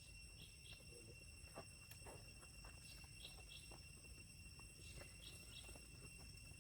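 Near silence: faint outdoor background with steady high-pitched tones and a short double chirp three times, about every two and a half seconds, plus a few faint clicks.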